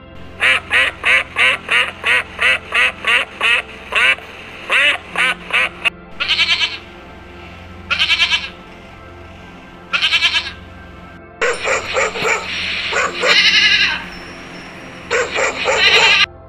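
Ducks quacking: a quick run of short quacks at about three a second, then slower, longer quacks a second or two apart. A steady background music bed runs underneath.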